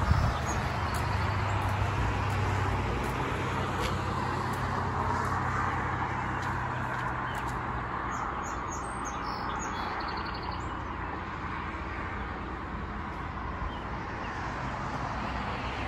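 Steady outdoor background noise with a low hum that fades out about halfway through, and a few faint bird chirps.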